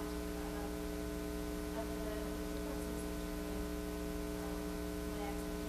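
Steady electrical mains hum, a low drone with a stack of even tones under a faint hiss. A faint, distant voice is barely audible under it.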